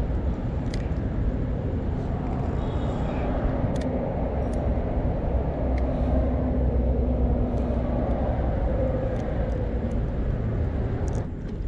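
Steady low outdoor rumble with a few faint clicks scattered through it.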